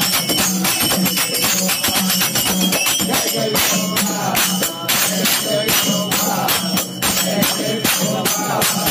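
Marathi devotional bhajan to Vitthal: fast, steady jingling and clashing of hand percussion over a repeated low beat, with voices singing, plainest from about three and a half seconds in.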